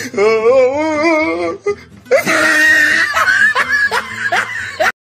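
Comic soundtrack over music: a voice's wavering, sing-song laugh, then a longer stretch of laughter that cuts off suddenly near the end.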